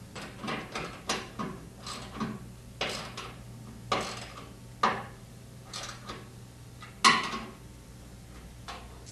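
Ratchet wrench tightening the bearing housing's inner bolts on a front-load washer's outer tub: uneven short strokes of metallic ratcheting clicks, the loudest about seven seconds in.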